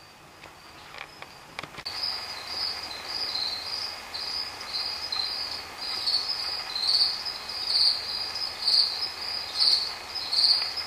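Crickets chirping, a steady high trill with louder chirps about once a second, starting about two seconds in after a few faint clicks.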